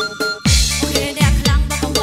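Khmer remix dance music ("nhak" style) with heavy electronic bass kicks whose pitch drops. The beat drops out briefly at the start and comes back in about half a second in.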